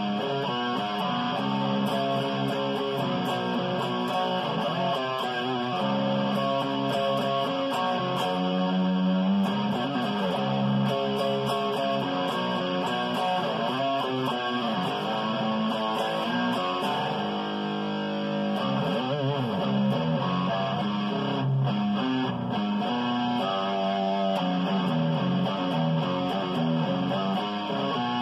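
Ibanez electric guitar played with a pick, a continuous run of picked notes and chords. Some notes bend in pitch about a third of the way in and again past the middle.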